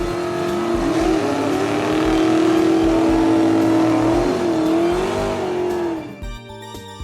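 Vehicle sound effect for a monster truck: a loud, mostly steady engine-like tone whose pitch wavers and bends, over a haze of noise. It fades out about six seconds in. A children's music beat continues faintly underneath.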